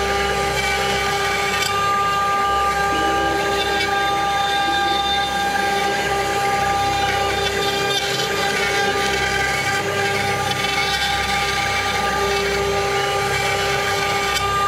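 A 6090 CNC router's spindle, at 24,000 RPM, runs with a steady high-pitched whine while a 3 mm ball-nose cutter mills a 3D relief into a wooden panel, with a continuous chip-cutting rasp underneath.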